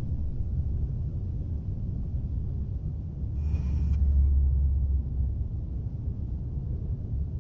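A low, steady rumble that swells about three and a half seconds in. A brief, higher-pitched call sounds at the same moment.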